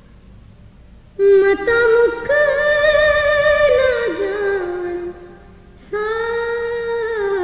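A woman singing a Muharram noha, a mourning lament, solo, in long held phrases with vibrato. She comes in about a second in, breaks off briefly near five seconds, and takes up the next phrase.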